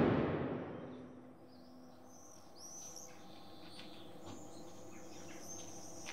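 Birds chirping with short rising and falling calls, starting about two and a half seconds in, after a deep boom that fades out over the first second.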